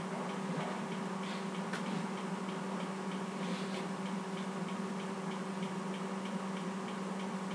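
Steady low electrical hum with a faint, regular ticking over it.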